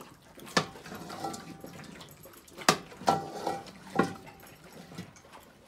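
A metal fork clanking against a large aluminium pot while boiled bones are lifted out of bone broth, with the broth splashing. There are four sharp clinks, each with a short metallic ring; the loudest comes about two and a half seconds in.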